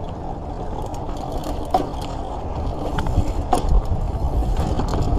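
Mountain bike rolling down a dirt trail: a steady rush of wind on the camera's microphone and tyre rumble, broken by several sharp clicks and rattles from the bike as it goes over bumps.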